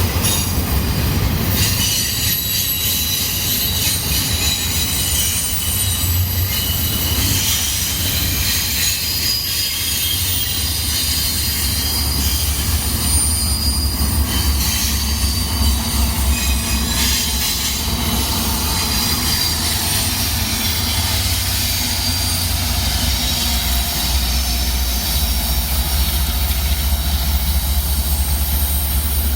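Freight train passing close by: the low, steady rumble of diesel locomotives working as distributed power units at the rear of an intermodal train, with steel wheels squealing on the rails.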